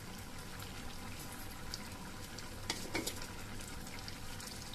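Cowpea and potato curry sizzling and simmering in a steel pot, stirred with a wooden spatula, with two sharp knocks about three seconds in.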